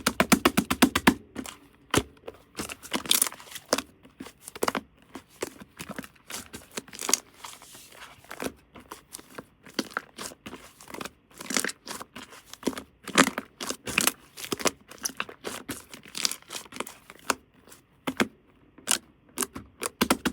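Close-up handling sounds: irregular tearing and crinkling strokes mixed with runs of quick sharp clicks.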